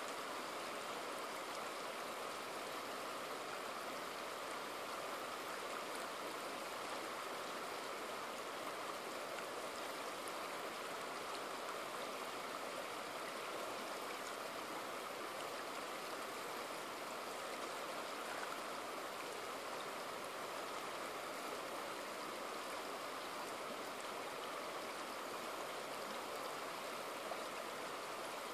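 Shallow river water running steadily over and around rounded boulders, a constant even wash of flowing water with no breaks.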